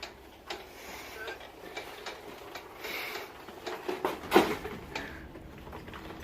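Irregular clicks and knocks, with the loudest knock about four and a half seconds in.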